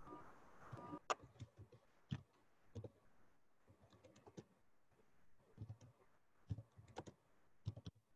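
Faint, irregular clicks and light knocks, about one a second, some with a dull low thud under them.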